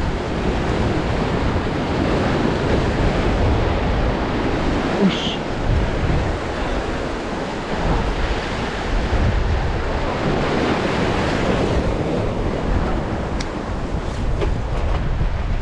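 Surf surging and breaking on the rocks of a stone jetty, with wind buffeting the microphone. A few faint clicks come near the end.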